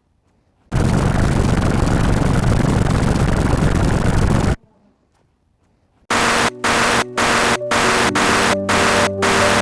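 A burst of loud, harsh static-like noise, starting just under a second in, lasting about four seconds and cutting off abruptly. After a second and a half of silence, loud music starts, chopped by short regular dropouts about twice a second.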